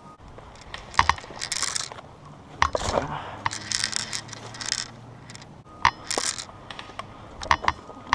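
A handful of sharp, metallic-sounding clicks spread out over several seconds, with bursts of rustling in between.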